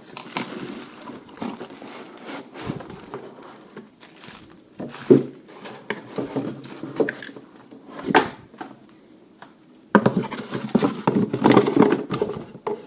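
Hands handling a cordless impact wrench and its packaging: irregular clicks, knocks, scraping and rustling, busiest near the end.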